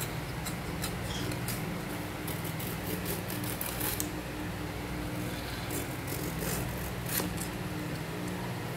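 Ridge gourd being peeled with a hand peeler: short, irregular scraping strokes of the blade along the skin, over a steady low hum.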